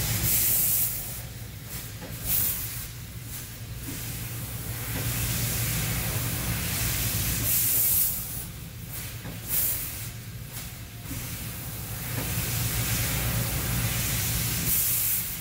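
Industrial fiber laser cutter cutting aluminum sheet: a steady hiss from the cutting head's assist gas over a low machine hum, with short, louder hissing blasts a few times.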